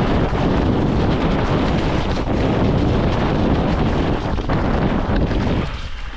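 Wind rushing over a helmet-mounted GoPro's microphone at speed on a dirt forest trail, mixed with the electric mountain bike's tyres rolling and frame rattling over the rough ground. It eases off near the end as the bike slows.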